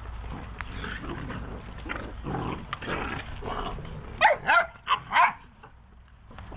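Tosa Inu puppies jostling and scuffling together, then four short, high-pitched puppy yelps in quick succession about four seconds in.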